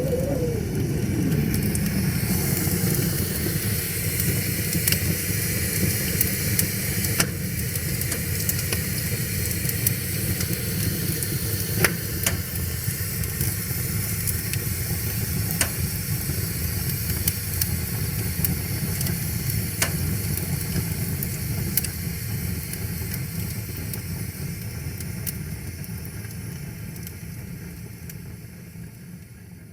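Wood fire crackling and hissing, with scattered sharp pops, over a steady low rush of flowing river water; it all fades out near the end.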